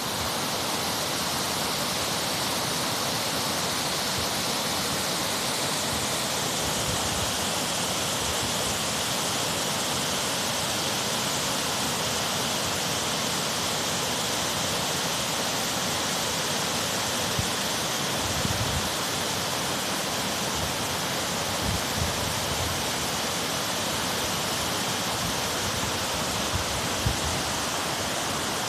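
Steady rush of water at a waterfall, an even noise that holds at the same level throughout, with a few brief low bumps in the second half.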